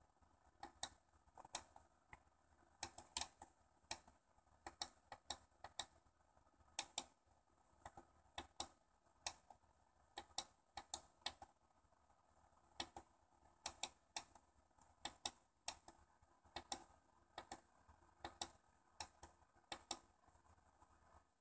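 Small tactile pushbuttons on a circuit board clicking as they are pressed to type text on a two-button binary-search keyboard. The clicks are sharp and irregular, about two a second, and stop shortly before the end.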